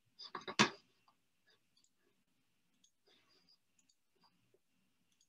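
A few short clicks in quick succession about half a second in, then near silence.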